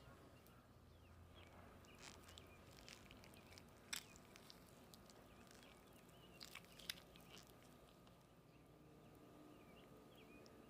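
Near silence: quiet room tone with a few faint clicks and taps, the sharpest about four seconds in and two more close together near seven seconds.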